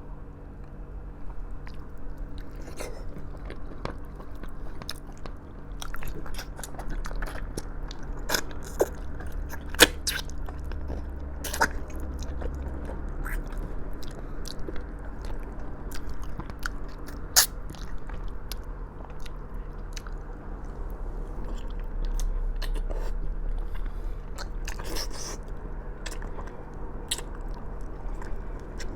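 Close-up chewing and biting of braised pork trotters (humba), with wet mouth noises and scattered sharp clicks over a steady low hum.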